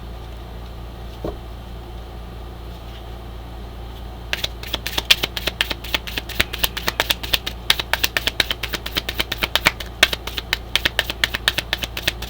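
Oracle cards being shuffled by hand: a fast run of crisp card clicks, several a second, starting about four seconds in, over a steady low hum.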